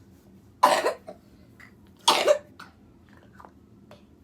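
A person coughing twice, about a second and a half apart, each cough short and loud.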